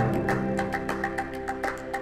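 Background music: sustained instrumental notes over a quick, steady percussive tick, about four a second.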